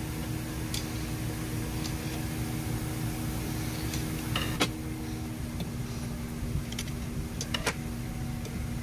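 A few short, sharp metal clicks and taps from handling a small-block Ford short block and its parts on a steel bench, the loudest about halfway through and a small cluster near the end, over a steady hum of shop machinery.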